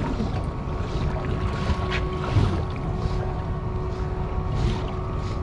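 Steady hum of a fishing boat underway or idling, with wind on the microphone and the wash of water, and a brief knock about two seconds in.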